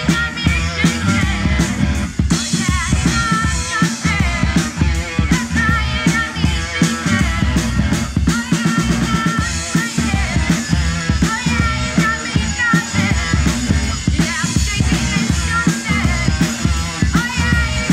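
Live rock band playing: a drum kit keeps a steady beat under electric guitars.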